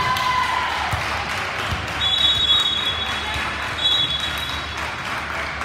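Gym crowd noise with shouting voices, and a referee's whistle blown twice in long blasts, about two and four seconds in, ending the game's final rally.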